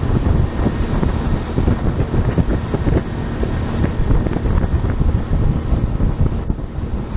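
Heavy wind buffeting on the microphone of a fishing boat under way, over the steady running of its outboard motor.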